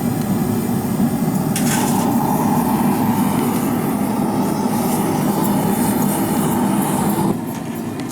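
Propane forge burner running with a steady rushing noise while steel heats inside. There is one faint click about a second and a half in, and the noise drops suddenly near the end.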